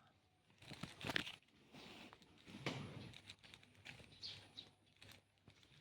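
Rubik's cube layers being turned by hand: faint, irregular plastic clicks and rattles, several in a row with short gaps.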